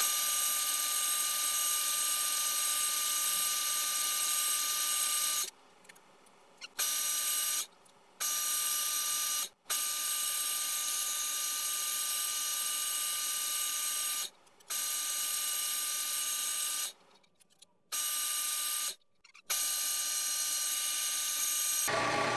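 Small bench metal lathe running at a steady speed as it turns a brass rod, a steady whine of many even tones. The sound breaks off abruptly several times and comes back at the same pitch.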